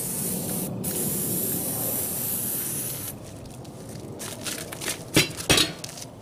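An aerosol can of starting fluid hisses steadily for about three seconds, with one short break near the start, as it is sprayed into a tire on its steel rim to fill it with flammable vapour for seating the bead. About five seconds in come two sharp knocks as the wheel is laid down flat on the asphalt.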